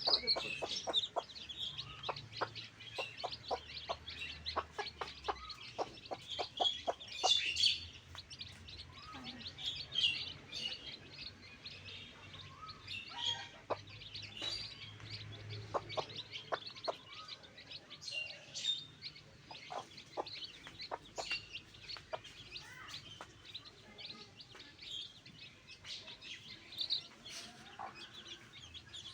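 Backyard chickens clucking and chirping, with many short calls scattered throughout and a run of quick ticks or pecks a few seconds in.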